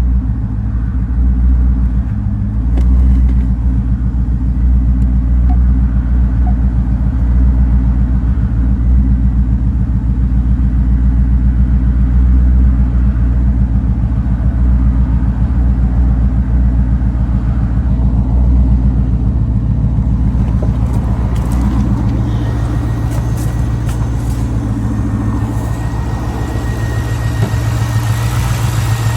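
C5 Corvette's LS-series V8 idling roughly, with a steady low, uneven engine note.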